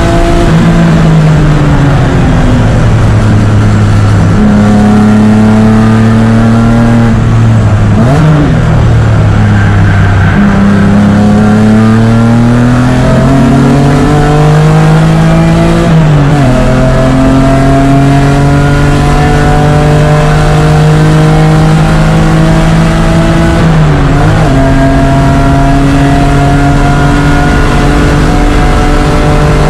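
BMW E36 race car engine heard on board at full effort, its pitch repeatedly climbing under acceleration and dropping through gear changes and braking, with abrupt shifts every few seconds.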